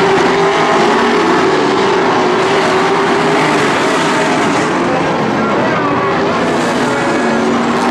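A pack of late model stock cars racing on a paved oval, their V8 engines running hard together, several engine notes rising and falling over one another as the cars pass.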